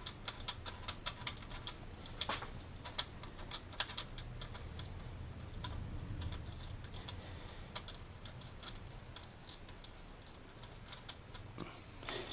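Light, irregular clicks and taps of a small nut being fitted by hand onto the alternator's terminal stud, metal against metal, quick and close together for the first few seconds, then sparser.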